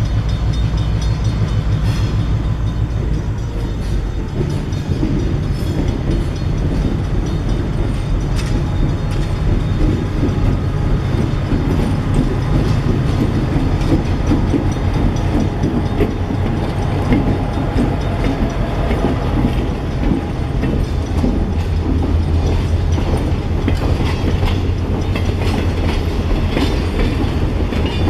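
Excursion train running along the track: a steady low engine drone under continuous wheel-and-rail noise with many small ticks.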